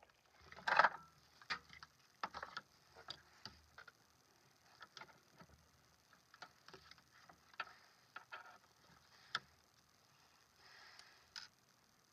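Irregular clicks and taps of hard plastic parts being handled and fitted together: a Blade-Tech Tek-Lok belt attachment and a polymer pistol mag pouch. A louder rustling knock comes about a second in.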